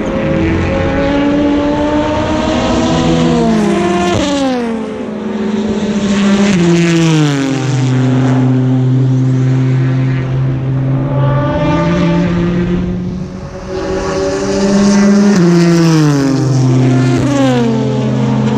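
Several endurance race cars go past at speed one after another. Each engine note drops in pitch as the car goes by, and the notes of different cars overlap.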